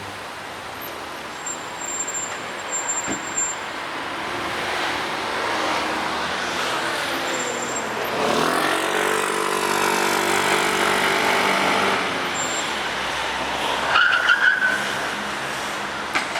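A car drives up and passes close by under acceleration, its engine note held for a few seconds, then a short high tyre squeal near the end.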